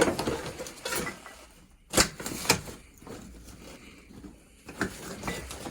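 Scattered knocks and rattles of objects being handled and moved, with one sharp knock about two seconds in.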